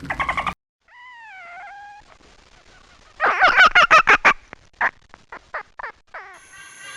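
Animal calls: a single drawn-out pitched call about a second in, then about three seconds in a loud rapid burst of calls that slows into spaced single calls.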